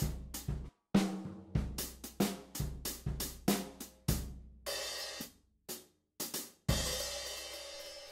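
Sampled acoustic drum kit from Premier Sound Factory's Drum Tree library, played from a MIDI keyboard. It plays a pattern of kick, snare and hi-hat strokes, then about four seconds in breaks into cymbal hits, and the last one rings out and fades.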